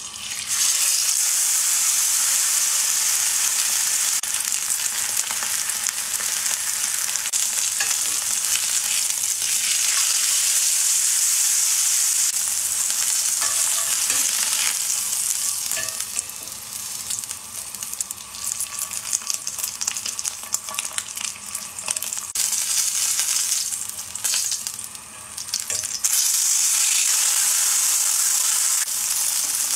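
Ribeye steak searing in a hot cast-iron skillet: loud, steady sizzling that starts suddenly as the steak goes into the pan, weakens and turns uneven about halfway through, then rises sharply again a few seconds before the end.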